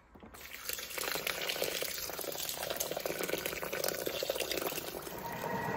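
Vegetable broth poured from a jug into a Thermomix's stainless steel mixing bowl onto risotto rice: a steady splashing pour that starts a moment in.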